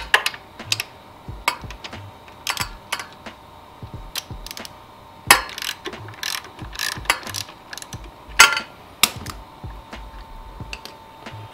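Hand ratchet clicking in short irregular runs as a 14 mm socket backs out a motorcycle engine-mount bolt, with a few louder clicks among them.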